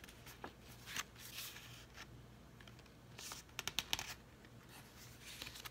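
Paper pages and cards of a handmade journal being handled and turned: soft rustles, with a quick run of crisp paper flicks a little past the middle. A faint steady hum runs underneath.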